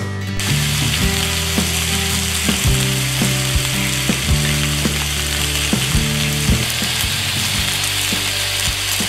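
Wild turkey legs and sliced onion sizzling steadily in a hot cast-iron skillet as they brown; the sizzle sets in about half a second in.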